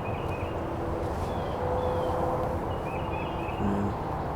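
A small songbird chirping short, slurred high notes in small groups, repeated about every second, over a steady low rumble.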